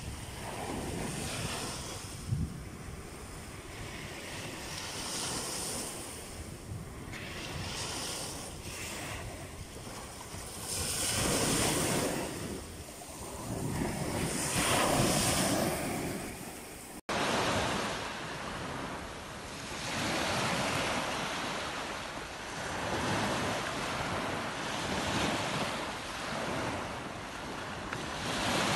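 Small waves breaking and washing up a sandy beach, the surf swelling and ebbing every few seconds, with wind on the microphone. The sound cuts out for an instant about two-thirds of the way through and resumes as another stretch of surf.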